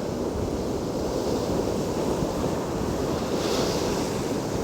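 Rough sea surf: heavy waves breaking and washing ashore in a steady low roar, with wind buffeting the microphone. A brief hissing wash rises about three and a half seconds in.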